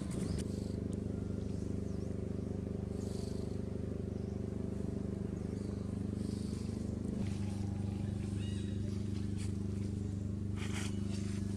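A steady, low, unchanging hum like an idling engine.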